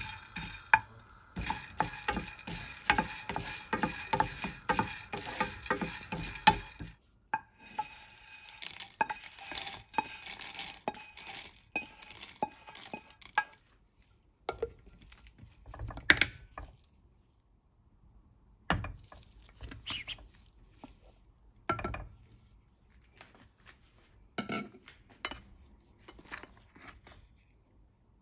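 Wooden spoon stirring dry green cardamom pods as they roast in a frying pan, the pods rattling and scraping against the pan in a dense run of clicks, with a brief break about seven seconds in. Around the middle the rattling stops, and a few separate knocks and clinks follow a couple of seconds apart, with quiet between them.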